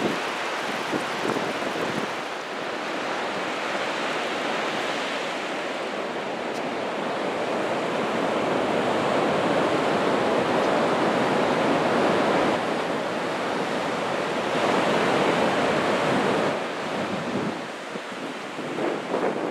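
Ocean surf breaking and washing up the beach: a steady rush that swells louder through the middle and falls back near the end, with wind buffeting the microphone.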